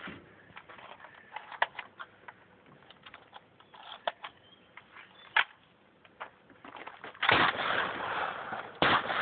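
Two shotgun shots near the end, about a second and a half apart, each with a long echoing tail. A few sharp clicks come before them.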